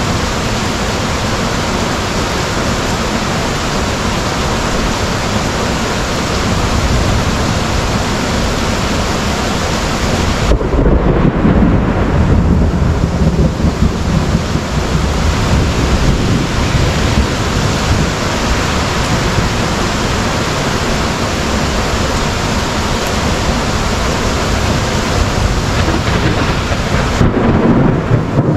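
Heavy rain pouring steadily in a thunderstorm, with a long low rumble of thunder rolling in about ten seconds in and another near the end.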